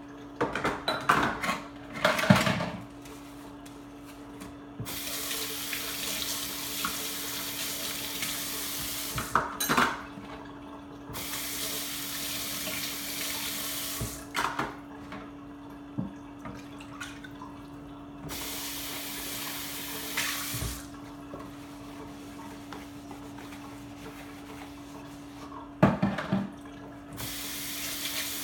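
Kitchen faucet running into a stainless steel sink in four stretches of a few seconds each, turned on and off between rinses. Dishes and utensils clink and knock as they are washed and set in a dish rack, loudest near the start and again near the end. A steady low hum runs underneath.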